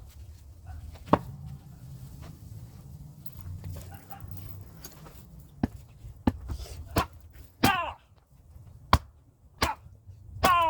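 Hand axe striking and splitting firewood, sped up to double speed: about six sharp chopping impacts at uneven intervals, the loudest about a second in. Two short pitched cries that bend in pitch come in among the later strikes.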